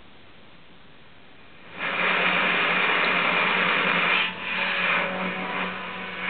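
Dancom R203 shortwave receiver's loudspeaker as it is tuned upward around 9.3 MHz on a long-wire antenna: faint hiss, then about two seconds in a sudden loud rasping noise with a steady hum underneath as the dial comes onto a signal. The signal briefly drops out about two-thirds of the way through and comes back weaker.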